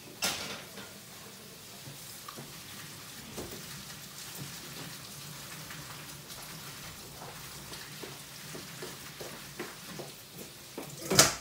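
Kitchen tap running steadily into a colander of cooked pasta in a stainless-steel sink, the pasta being rinsed by hand. A sharp knock comes just after the start, and a louder clatter comes near the end.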